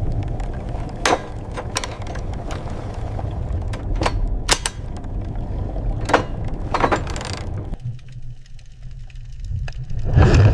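A low rumble with irregular sharp clicks and knocks scattered over it. Near the end comes a louder, longer burst.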